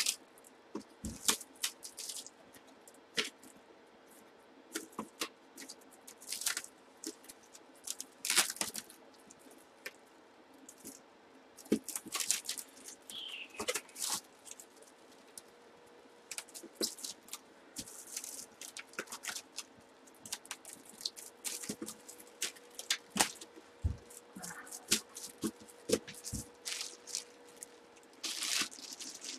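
Plastic bag and wrap crinkling and rustling in irregular bursts, with small clicks, as hands rewrap a batting helmet.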